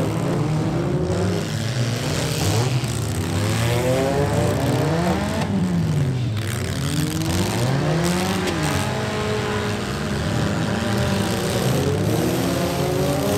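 Several compact-car engines revving up and down at once, their overlapping pitches rising and falling as the mini demolition derby cars manoeuvre and push.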